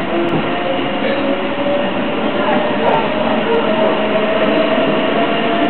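Inside a moving passenger train carriage: a steady loud rumble and rush of wheels on the rails, with a faint whine that drifts slightly in pitch.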